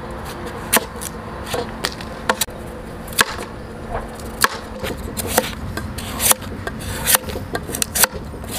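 Cleaver chopping through raw pumpkin and knocking on a wooden cutting board, in irregular sharp chops a little over one a second.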